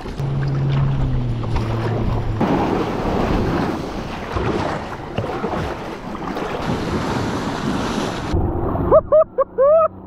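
Wind buffeting the microphone over rushing sea water from a boat under way, with a low steady hum in the first two seconds. Near the end there are a few short rising-and-falling cries.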